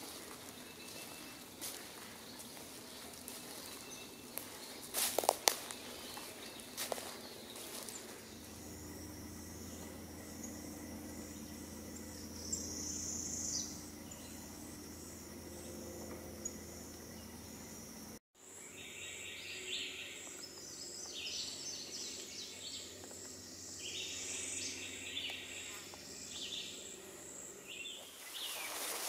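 Outdoor woodland ambience: a steady high insect buzz, with birds calling in short repeated trills. A few sharp clicks come about five to seven seconds in, and the sound drops out for an instant a little past halfway.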